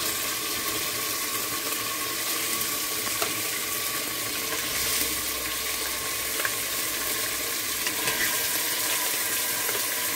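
Steady frying sizzle from oil, garlic, onion and tomato paste in a pressure cooker pot as chunks of carne seca are spooned in, with a few faint clicks.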